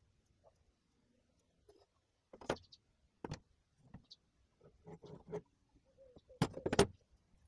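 Steel parts being handled and set down on a wooden table: a series of separate knocks and clinks, the loudest a double knock near the end.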